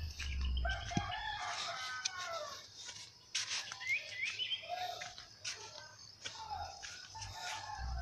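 A rooster crowing, one long call about a second in, with small birds chirping in between.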